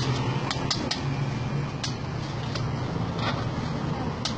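Sharp metal clicks and taps of a cooking tool on a flat-top griddle, scattered irregularly, over a steady low hum.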